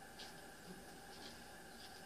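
Near silence: faint room tone with a few soft, brief ticks.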